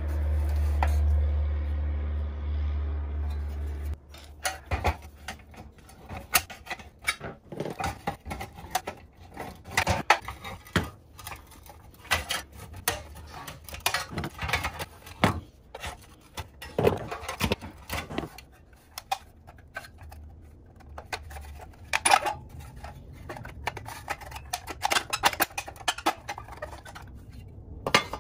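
Irregular metallic clinks, clanks and light scrapes as pressed-steel toy dump truck parts and hand tools are handled and knocked together during disassembly. A low steady drone plays over the opening and cuts off about four seconds in.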